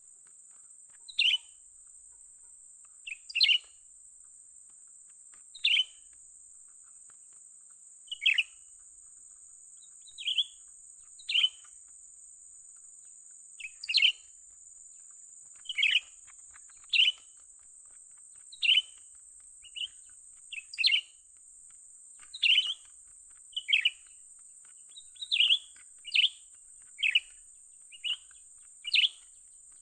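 Cucak ranting giving short, sharp chirping calls, repeated every second or two at an uneven pace, over a steady high-pitched hiss.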